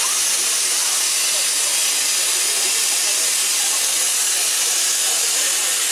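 Steam hissing steadily from the LMS Jubilee class 4-6-0 steam locomotive 45596 Bahamas, a constant high hiss of escaping steam.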